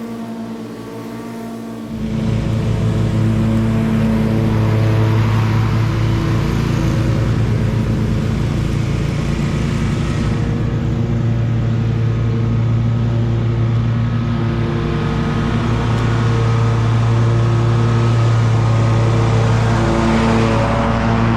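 Commercial lawn mower's engine running steadily; it gets louder about two seconds in, then holds a steady drone.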